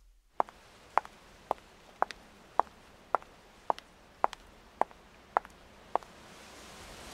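Footsteps of high-heeled shoes clicking on paving stones at a steady walking pace, about two steps a second, stopping about six seconds in. A faint hiss rises near the end.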